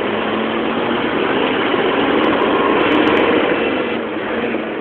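Dakar race truck's diesel engine running under way, heard from inside the cab together with road noise; it swells a little toward the middle and eases off near the end.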